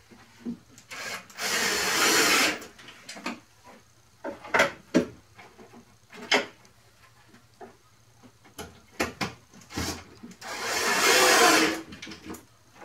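Cordless drill driving screws into wood: two runs of a little over a second each, about a second in and near the end. Scattered knocks and clicks from handling come in between.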